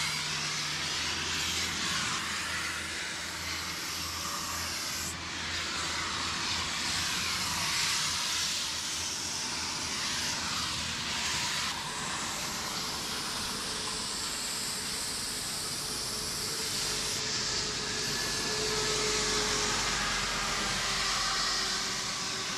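Aerosol spray-paint can hissing as it sprays black outline lines onto a wall, with only small shifts in the hiss.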